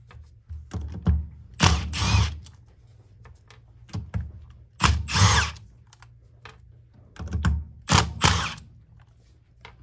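Cordless power driver backing out the screws that hold the gear housing on a Bodine right-angle gear motor. It runs in three short loud spells about three seconds apart, each with a brief lighter run just before it, as it moves from screw to screw.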